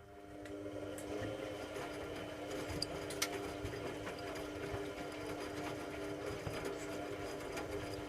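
Hoover Logic A3790 washing machine's motor starting up and running with a steady hum, with a few faint clicks.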